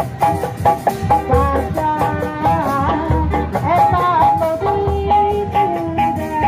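Live Sundanese benjang ensemble music: a high melody that slides and bends in pitch, played over a steady beat of low drums.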